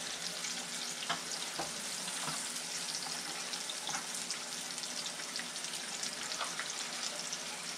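Mangrove snapper fillets frying in a skillet, a steady sizzle and crackle of hot oil, with a few faint knocks in the first couple of seconds as pieces are laid in the pan.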